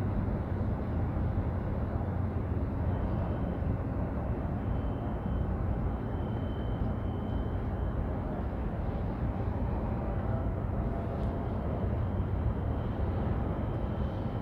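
Steady low rumble of harbour ambience out of doors, with a faint thin high tone that comes and goes.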